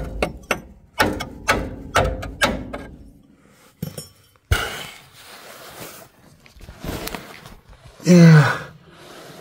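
A hand tool strikes the freshly welded steel frame of a car in sharp knocks, about two a second, stopping about three seconds in. A single sharp click follows, and near the end comes a loud groan with a falling pitch from the man lying under the car.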